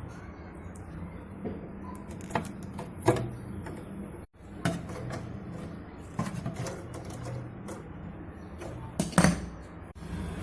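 Irregular clicks and metallic clinks of tools and parts being handled, with a couple of louder knocks, over a low steady hum.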